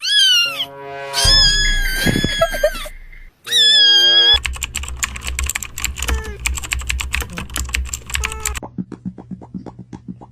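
Meme sound clips: three short pitched calls in the first four seconds, then rapid computer keyboard typing over a steady music bed, thinning to lighter, sparser keystrokes near the end.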